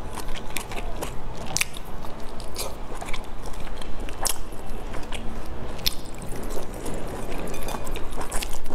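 Close-miked biting and chewing of meat-filled dumplings, with many short, irregular wet clicks and smacks from the mouth.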